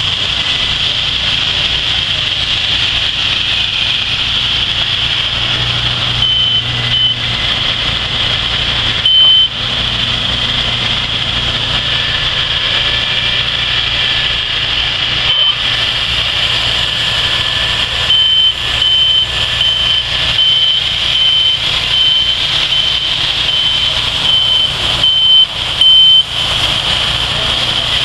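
Wood-Mizer LT70 and other portable band sawmills running: a steady engine din with a constant high hiss. Short high beeps sound a few times, then repeat about twice a second through the last third.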